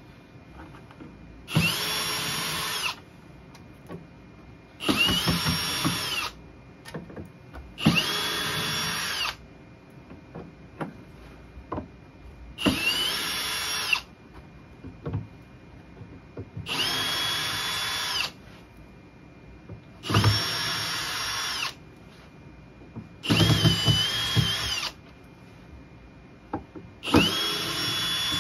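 Power drill backing out the mounting screws of a speaker driver. It runs in about eight short bursts of a second and a half each, spinning up and winding down each time, with pauses of a few seconds and small clicks between bursts.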